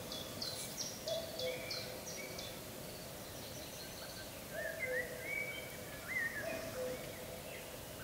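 Several wild birds calling. A low two-note call, dropping from the higher note to the lower, repeats every couple of seconds. Short high chirps come near the start, and brief whistled phrases come in the second half.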